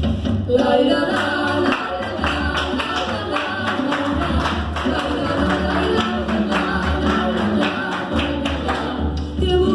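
Latin American folk dance music with a steady beat, played loud for dancers, with hand-claps in time with it.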